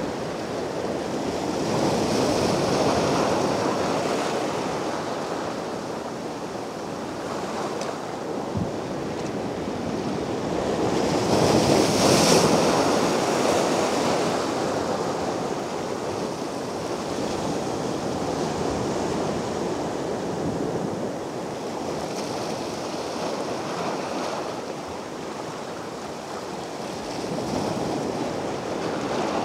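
Small Mediterranean waves breaking on the shore and washing back, in slow surges, the biggest about twelve seconds in.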